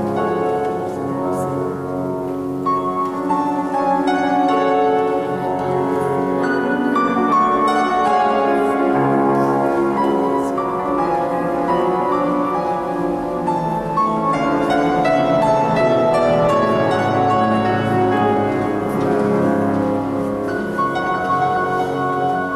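Solo grand piano playing a classical piece: a steady stream of notes in the middle and upper range over held bass notes, in a large church.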